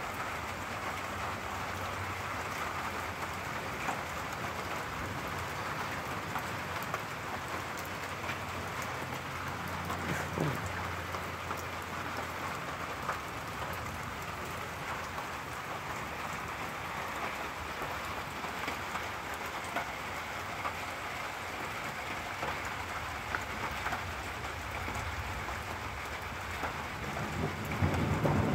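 Steady rain falling during a thunderstorm, with a long low rumble of thunder through the first dozen seconds, loudest about ten seconds in. The sound swells louder just before the end.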